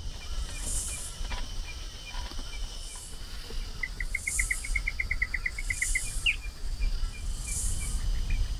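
Outdoor insect chirping, pulsing high about once a second over a low steady rumble. A bird trills briefly in the middle, a quick run of short notes lasting about two seconds.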